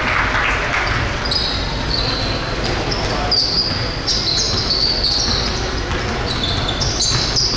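Basketball game in a gym: a ball bouncing on the court, repeated short high squeaks, and crowd voices in an echoing hall.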